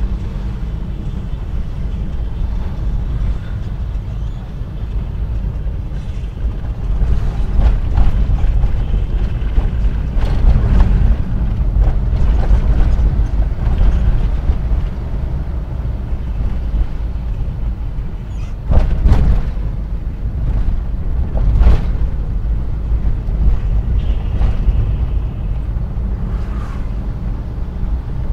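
Suzuki Carry Futura driving, heard from inside the cab: a steady low rumble of engine and road noise, with a few sharp knocks and rattles along the way.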